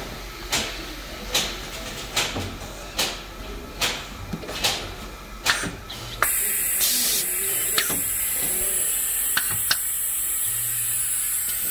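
Pneumatic label-applicator machinery: sharp mechanical clicks about once a second. About six seconds in, a steady high hiss of compressed air starts and keeps on: the vacuum generator of the label pick-up arm running.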